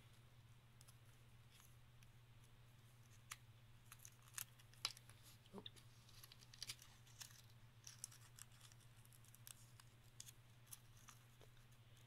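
Faint, scattered crackles and clicks of a tiny piece of origami paper being creased and folded between fingertips, over a steady low hum.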